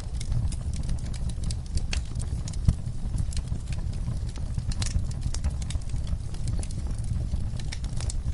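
Wood fire crackling, with irregular sharp pops and snaps over a low, steady rumble of flame; one pop about two and a half seconds in stands out louder.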